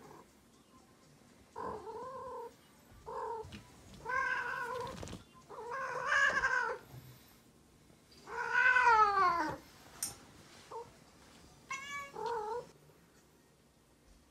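Female cat in heat yowling: about six drawn-out calls, the longest and loudest about eight seconds in, rising and then sliding down in pitch. This calling is the sign of a queen in estrus.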